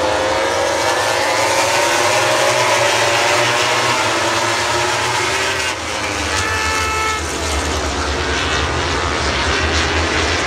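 MotoGP bikes' four-cylinder racing engines rising in pitch as they accelerate past, over crowd noise. About six seconds in a horn sounds briefly, and a low helicopter drone comes up underneath in the second half.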